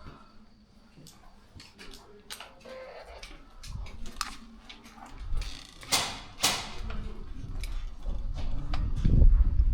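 Scattered airsoft gunfire: short, sharp pops at irregular intervals, the loudest about six seconds in, with rustling movement growing louder near the end.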